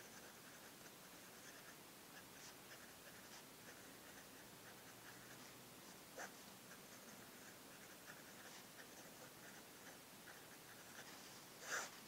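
Parker Sonnet fountain pen nib scratching faintly and irregularly across paper as words are written. There is a small tick about halfway through and a louder, longer scratch near the end.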